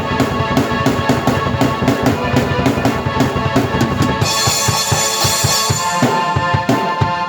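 Drum kit and keyboard played together in an instrumental piece: a fast, steady beat of bass drum and snare under sustained keyboard chords. About four seconds in, a bright high wash comes in for under two seconds.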